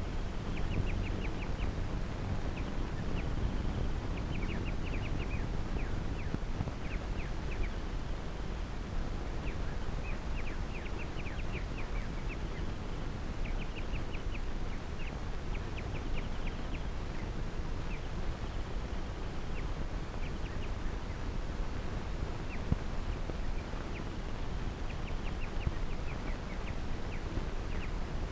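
Steady hiss and low rumble of a worn 16mm optical film soundtrack, with repeated groups of short, high chirping clicks every second or two.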